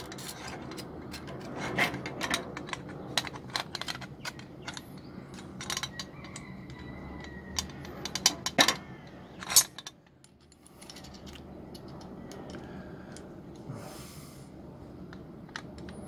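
Brass and steel parts of an antique Ottoman coffee grinder being fitted together by hand: scattered metal clicks, taps and scrapes, with a few sharper knocks about two seconds in and around nine seconds.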